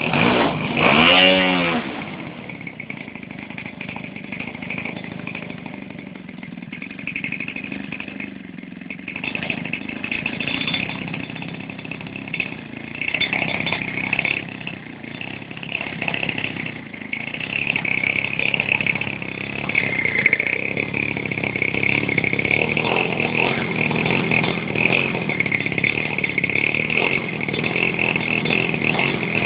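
Fuji 50cc two-stroke petrol engine of a large RC model airplane running, with a quick rise and fall in pitch at the start, then a steady buzz that grows louder at times.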